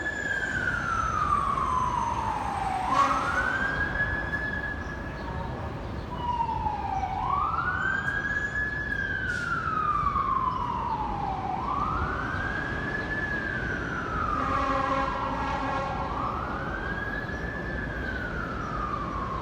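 Federal Q mechanical siren on a fire ladder truck, winding up in about a second and a half and coasting down more slowly, over and over, about every four and a half seconds. Low road and engine noise runs underneath, and a brief buzzy tone is heard about three quarters of the way through.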